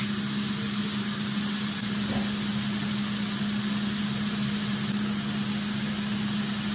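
Beef hamburger patties frying in a hot pan, a steady sizzling hiss, with a steady low hum underneath.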